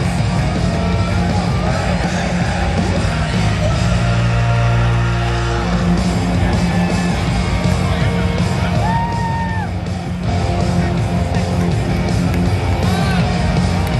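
Rock goal song playing loud over an arena's public-address system after a goal, with the crowd yelling and whooping over it.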